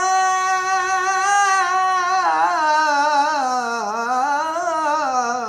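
A man's solo voice chanting Torah cantillation in the Constantine Jewish tradition, drawing out one long melismatic note. It holds steady for about two seconds, then turns into wavering ornaments, dips and rises again, and falls at the end.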